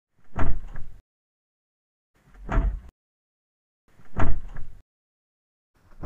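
Car door being opened again and again, about every two seconds: each time the handle is pulled and the latch lets go with a clunk followed by a second, lighter click. A fourth opening begins near the end.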